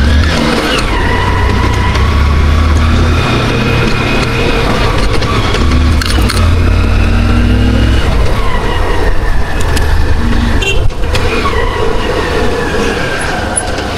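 Riding through city traffic: vehicle engines and road noise with a heavy low wind rumble on the microphone. The engine pitch slides down about a second in and again about 11 seconds in.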